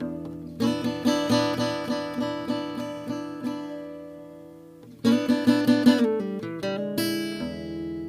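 1968 Yamaha S-70 acoustic guitar being played: a chord about half a second in, then picked notes about two or three a second that ring and fade. Another chord comes in with quick picked notes about five seconds in, and a last chord near the end rings out.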